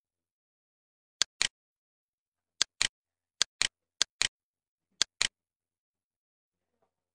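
Computer mouse button clicking five times, each click a quick double tick of press and release, with silence between the clicks.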